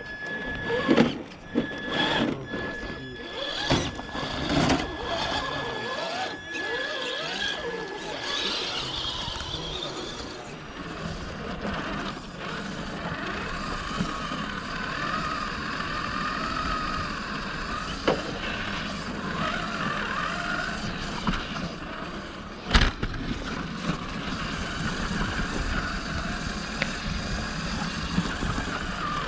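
Electric motor and gear drivetrain of a radio-controlled rock crawler whining as it is driven over granite. The whine cuts in and out with the throttle during the first several seconds, among clicks and scrapes of tyres and chassis on stone. After that it runs as a steadier wavering whine, with one sharp knock a little after twenty seconds.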